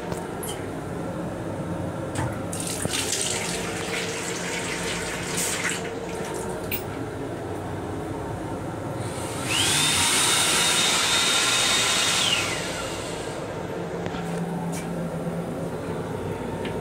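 Railcar restroom sink faucet running for about three seconds, water spraying with a whine that rises as it starts and falls away as it stops. Under it is the steady rumble of the moving train.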